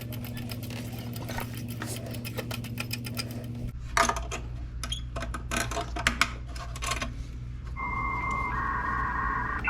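Ratchet wrench clicking rapidly as a nut is run on, a fast steady run of clicks for about three and a half seconds, then a few scattered clicks. A steady low hum underneath, and music comes in near the end.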